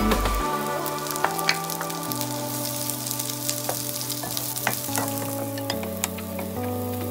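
Chopped garlic and red onion sizzling in hot oil in a nonstick pan, with the scrape and tap of a wooden spoon stirring them. Background music of held notes runs underneath.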